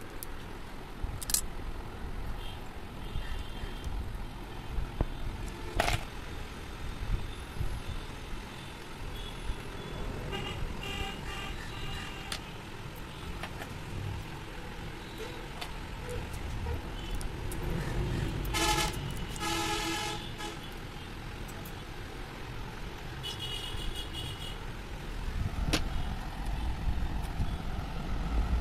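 Background traffic rumble with vehicle horns honking several times, the loudest a pair of honks about two thirds of the way through. A few sharp metallic clicks of small valve parts being handled.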